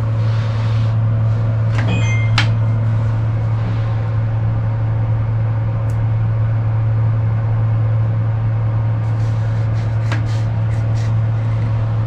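A steady low hum from a running motor or appliance, with a few sharp clicks and a brief squeak about two seconds in and another click about ten seconds in.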